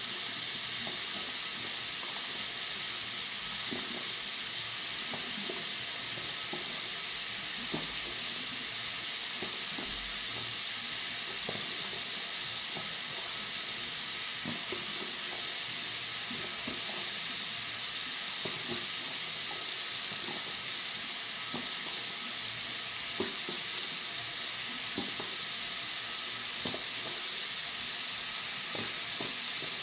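Tap water running into a bathroom sink: a steady, high hiss with small irregular splashes and drips through it.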